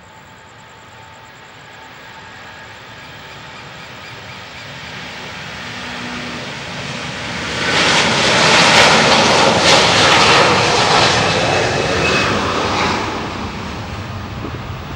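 Airbus A330-300's Rolls-Royce Trent 700 turbofans at takeoff power as the jet rolls down the runway past the listener. The sound builds steadily, jumps sharply and is loudest from about eight seconds in as the aircraft passes, then fades near the end.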